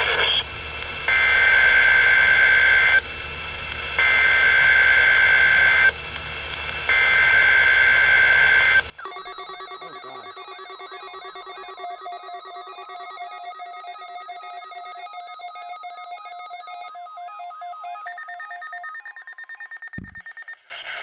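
NOAA weather radio sounding the three SAME digital header bursts of a required weekly test: about two seconds each of harsh two-pitch data screech over radio static, with short gaps between them. Then, from about nine seconds in, the alarms of several weather alert radios go off together, a tangle of beeping and warbling tones that drop out one by one near the end.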